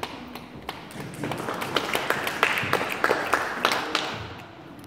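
Audience applauding: a few scattered claps that swell into full applause and die away about four seconds in.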